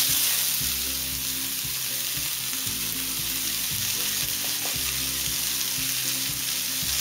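Green chilies sizzling in hot oil with mustard seeds in a nonstick frying pan, a steady frying hiss that is loudest just as they go in, then settles. This is the chilies hitting the mustard-seed tempering.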